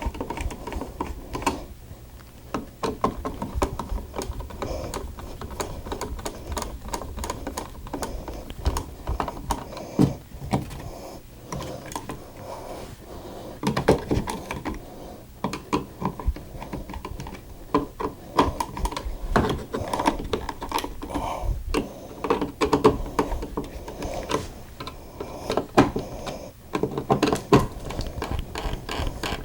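Screwdriver tightening the mounting screws of wall switches in a plastic switch box: a run of irregular small clicks and scrapes, starting and stopping.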